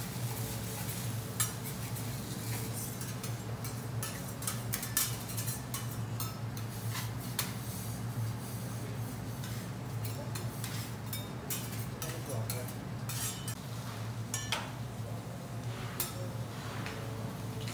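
Metal teppanyaki spatulas clinking and scraping on a steel griddle plate: many sharp, irregular clicks and clinks over a steady low hum.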